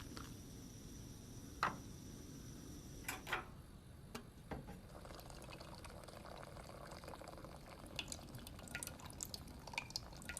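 Faint household handling sounds: a few sharp knocks and clicks, then from about halfway in a soft liquid sound like water being poured or dripping, with light clinks.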